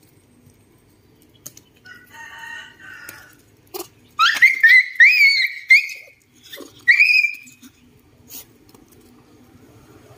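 Young macaque giving shrill, wavering squeals, a run of them starting about four seconds in and one more a second later, with a softer call before them.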